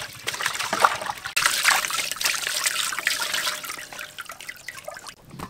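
Water splashing and dripping in a stainless steel basin as hands wash a slab of raw meat, rubbing it and lifting it out of the water. The splashing stops suddenly near the end.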